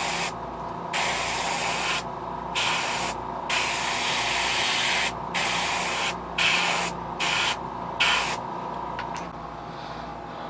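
Airbrush spraying paint onto a fishing lure: a hiss in about eight short bursts as the trigger is pressed and released, stopping about eight seconds in. A faint steady hum runs underneath.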